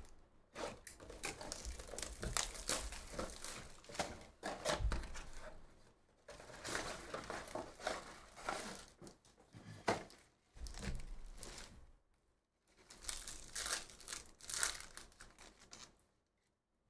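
A cardboard trading-card hobby box being torn open and its card packs handled, with crinkling and tearing in several bursts of a second or two and short pauses between them.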